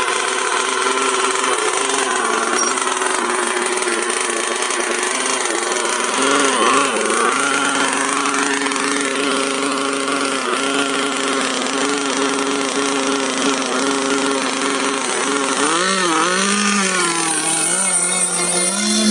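Small engines of radio-controlled model boats running hard with a buzzing drone, the pitch rising and falling as the throttle changes. The pitch swings stand out about six seconds in and again near the end.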